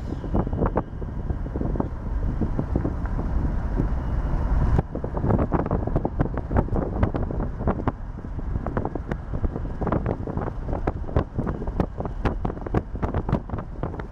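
Wind buffeting the microphone over the rumble of a moving vehicle, with many short crackles and thumps. The sound changes abruptly about five seconds in.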